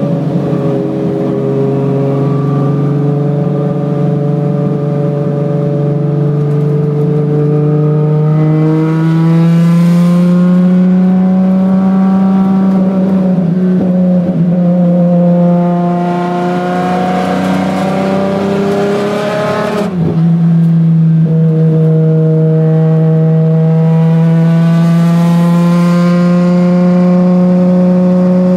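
Ferrari 599XX V12 engine running hard, heard from inside the car. The engine note climbs and drifts in pitch for the first two-thirds, dips briefly about twenty seconds in as if on a gearshift or lift, then holds a steady high note.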